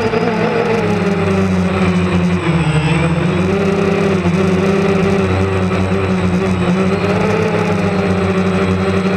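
DJI Phantom quadcopter's electric motors and propellers whirring, heard up close from the camera on board. The hum is steady, and its pitch wavers and dips slightly as the drone changes throttle while it manoeuvres.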